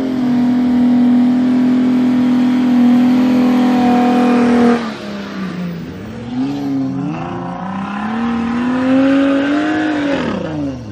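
Off-road vehicle engine held at high revs for about five seconds. Then it drops off, and the revs rise and fall as the throttle is worked in soft sand.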